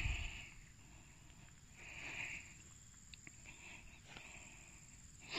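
Soft rustling of a mesh fish keep bag being handled, in two short bursts with a few light clicks between.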